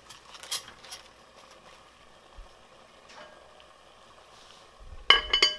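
Cabbage leaves rustling and dropping into a metal steamer basket in a glass pot, with a few soft knocks in the first second. About five seconds in, a quick run of loud, sharp clinking knocks begins.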